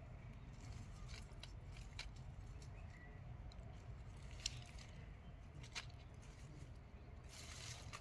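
Hands digging potatoes out of loose soil: faint scraping and rustling of earth, potato stems and dry leaves, with scattered small crackles and a couple of sharper clicks, one about four and a half seconds in and another near six seconds.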